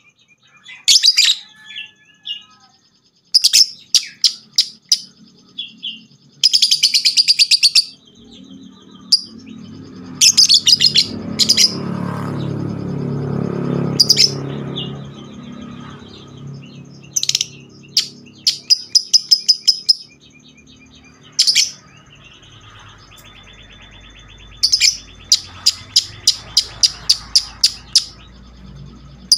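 Lovebird ngekek song: loud strings of rapid, sharp, high chattering chirps, each run of quick notes broken by short pauses. A low rumble swells and fades in the middle.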